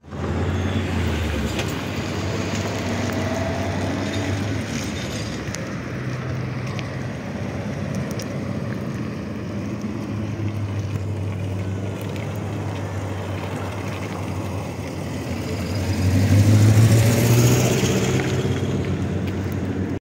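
A motor vehicle's engine running with a steady low drone, swelling louder for a couple of seconds near the end as if coming close.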